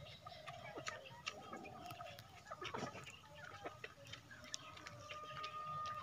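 Aseel rooster pecking at a plastic feeder: scattered, irregular light ticks and taps of beak on plastic, against faint background voices and calls.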